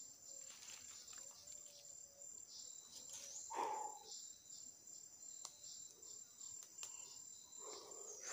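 Insects shrilling steadily at a high pitch, faint, with a brief louder sound about three and a half seconds in.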